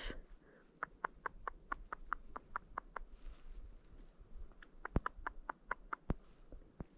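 A hunter's squirrel cutting call made with the mouth: a quick run of sharp clicks, about five a second, then a few more scattered clicks later on. It imitates the sound of a squirrel feeding, to draw squirrels out.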